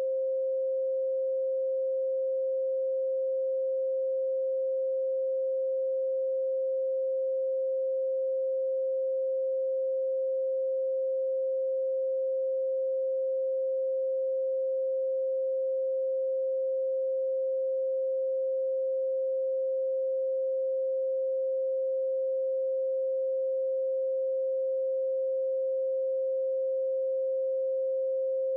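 A steady pure sine tone at 528 Hz, one unwavering pitch with no music or other sound alongside it.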